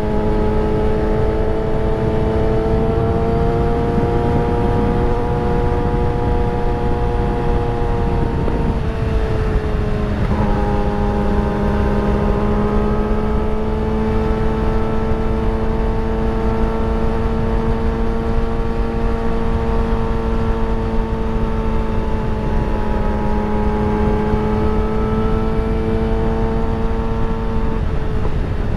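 Engine of a moving vehicle running at a steady cruise over wind and road noise, its note drifting slowly up and down. About nine seconds in the pitch sags and breaks, as at a gear change, then settles and slowly climbs again.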